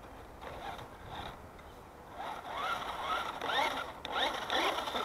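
Brushed electric motor and gearbox of a Tamco Ranger 1/10-scale 4WD RC truck whining in short throttle bursts, the pitch rising with each burst. The bursts come close together and are loudest in the second half.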